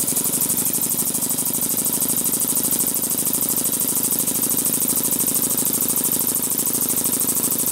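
Small brass oscillating-cylinder model steam engine running fast, its exhaust puffing in a rapid, even rhythm of about ten hissing puffs a second. It starts suddenly.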